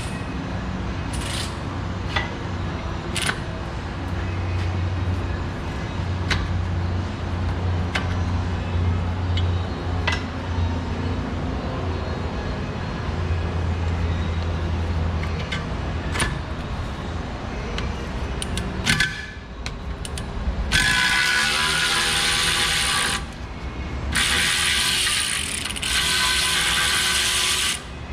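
Hand tools working on a suspension control arm bolt: scattered sharp ratchet clicks over a steady low hum. Later come two loud, hissing bursts of a power tool running, each lasting a few seconds.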